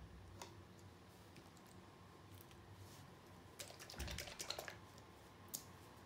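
Paint containers being handled and set down on a plastic-covered table: a quick run of small clicks and taps just past the middle, with single clicks near the start and near the end.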